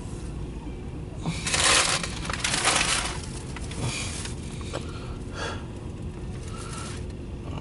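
Empty autorack freight train rolling past, heard from inside a car: a steady low rumble of wheels on rail, with two loud rushes of hissing noise about one and a half and two and a half seconds in.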